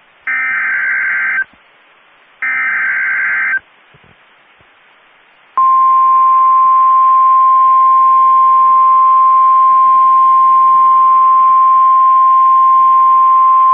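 NOAA Weather Radio Emergency Alert System tones. Two short bursts of SAME digital header data, each about a second long, carry the coded alert, here a Severe Thunderstorm Watch. After a pause of about two seconds comes the steady single-pitch 1050 Hz warning alarm tone, starting about five and a half seconds in, which signals that an alert announcement follows.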